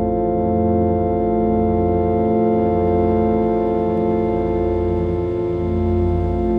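Meditation music: a sustained, drone-like chord of many held tones with an organ-like timbre and a slow pulsing in the bass.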